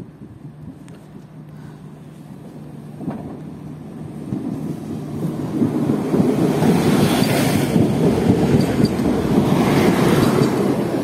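Koleje Dolnośląskie regional multiple-unit train approaching and running past close by, its wheel and running noise building from about four seconds in and loudest from about six seconds on, with surges as the bogies pass.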